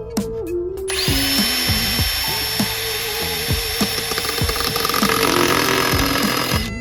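Electric power tool running under load for about six seconds with a steady high whine. The motor spins up about a second in and cuts off abruptly near the end.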